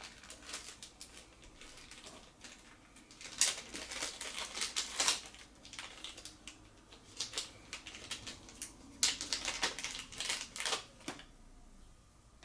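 Packaging being handled: irregular crinkling and clicking in clusters, loudest twice, about four seconds in and again about nine seconds in.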